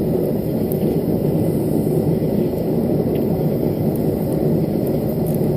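Forge burner running with a steady low roar.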